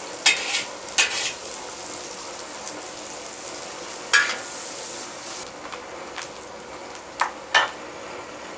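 Vegetables sizzling in a hand-hammered wok over a gas burner, stirred with a metal ladle and spatula that scrape and clank against the pan several times, twice in quick succession near the end. The sizzle is strongest in the first half and eases off after that.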